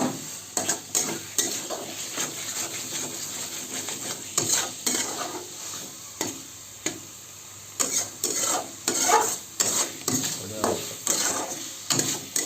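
Spatula stirring chicken and potatoes frying with spice powders in a hot kadai: repeated scraping strokes against the pan over a frying sizzle, with a short lull around the middle.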